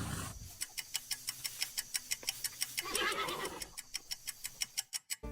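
Horse sound effect: hooves clip-clopping in an even rhythm, about five beats a second, with a whinny near the start and another about three seconds in.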